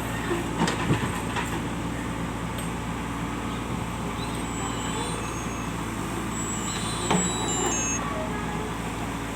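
JCB's diesel engine running steadily, with a few short knocks about half a second to a second in and again around seven seconds in.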